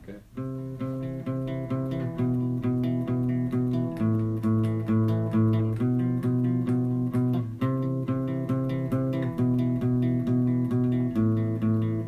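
Guitar song intro: chords played in steady, evenly repeated strokes, about three a second, moving to a new chord every couple of seconds.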